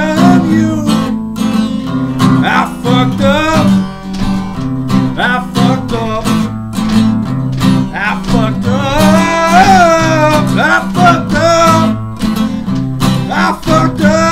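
Acoustic guitar strummed and picked in a steady rhythm, with a voice singing along without clear words in the second half.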